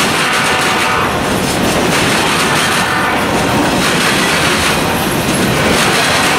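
Covered hopper cars of a CSX freight train rolling past close by: a loud, steady run of wheel and car noise with the wheels clacking over rail joints.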